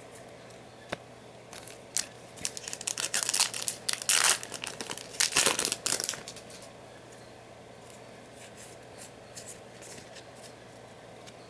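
Foil booster pack of trading cards being torn open and crinkled: a run of crackly tearing and rustling for several seconds, loudest about four and five and a half seconds in, then it stops.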